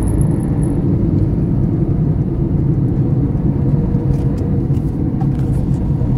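Car driving on a paved road, heard from inside the cabin: a steady low rumble of tyres and engine, with a few faint ticks about four to five seconds in.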